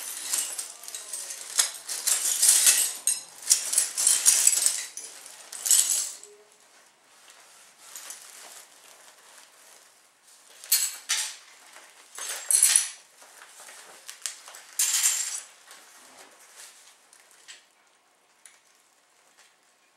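Shards of broken picture-frame glass clinking and scraping against each other, mixed with plastic sheeting crinkling, as the frame is taken apart. Dense bursts fill the first six seconds, followed by a few separate bursts in the middle and only faint handling near the end.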